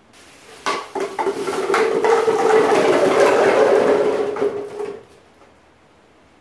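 Hard objects clattering and rattling, of the kind heard from dishes or cutlery. A few sharp clicks come first, then a dense rattle with a steady ringing tone, which stops fairly abruptly about five seconds in.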